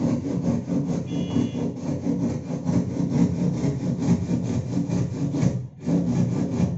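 Hand saw cutting through wood in rapid, regular back-and-forth strokes, pausing briefly near the end.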